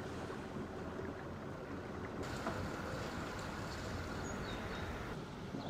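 Steady low rumble with a light hiss, with a few faint high chirps about four seconds in.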